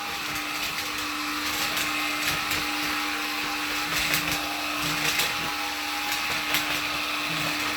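Black & Decker cordless lithium pet vacuum running steadily on its lower hard-floor suction setting as it is pushed over a hard floor: an even motor whine and rush of air, with scattered light clicks.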